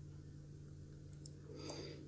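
Faint clicks of chopsticks and a spoon, then a short soft mouth sound near the end as curry sauce is sipped off a plastic spoon, over a low steady hum.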